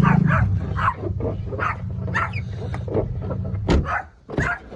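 A dog whining and yelping in short repeated cries, about two a second, over a low steady engine hum that fades out near the end.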